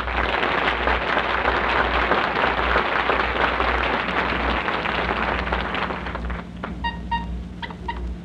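Studio audience applauding, dying away about six and a half seconds in. Then a few short, pitched toots in quick pairs, a car-horn sound effect.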